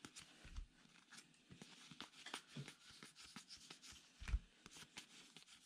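Stiff baseball cards being handled and moved through a stack one at a time: faint, irregular clicks and rustles of card stock sliding against card, with a soft thump about four seconds in.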